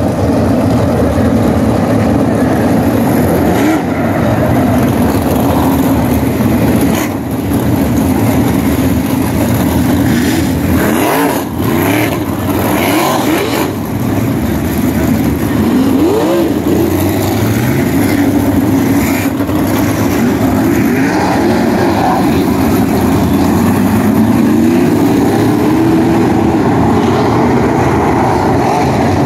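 A field of 700-horsepower winged sprint cars' V8 engines running hard on the dirt oval as a loud, continuous drone, with individual engines rising and falling in pitch as cars go by.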